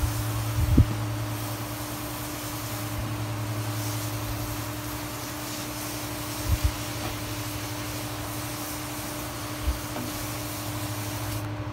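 Pressure washer running with a steady hum while its wand sprays a low-pressure soft wash onto a wooden fence, with a hissing spray. The spray hiss drops away just before the end while the machine hum continues. A few dull thumps come from the hose and the man's handling of it.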